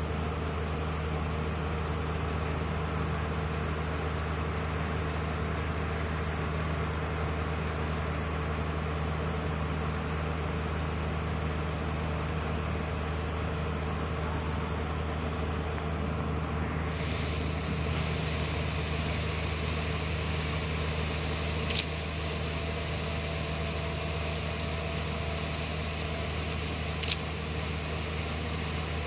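Watermaster amphibious dredger's engine and dredge pump running steadily under load, a constant low drone with a steady hum. Two brief sharp clicks come in the second half.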